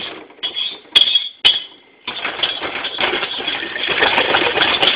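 A metal spoon clinks twice against a saucepan holding turkey brine. From about two seconds in, the spoon stirs and scrapes steadily through the liquid in the pan.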